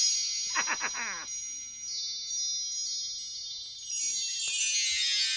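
Chime-like sparkle sound effect: high ringing tones held throughout, a quick run of strikes about half a second in, and a rising shimmer near the end.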